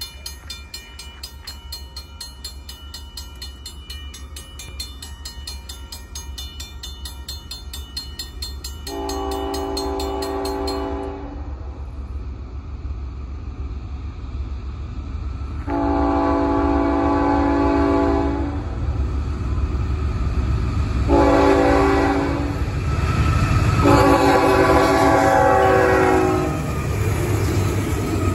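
Railroad crossing bell ringing in a fast, even rhythm, stopping about a third of the way in, while a Norfolk Southern diesel locomotive's multi-chime air horn sounds the grade-crossing signal: long, long, short, long. Under the horn, the train's rumble grows louder as the locomotive reaches and passes the crossing.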